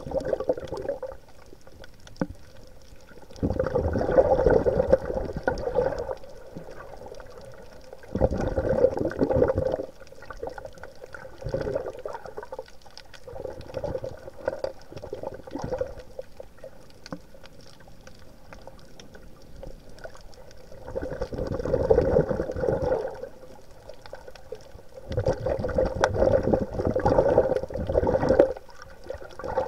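Underwater bubbling and gurgling in bursts of one to three seconds, coming every few seconds, with a quieter wash of water between them.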